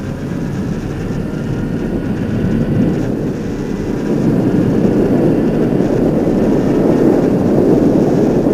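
Wind rush and engine noise from a 2007 Kawasaki ZX-10R inline-four sportbike being ridden on the road, a dense steady rush that grows louder over the first four seconds and then holds.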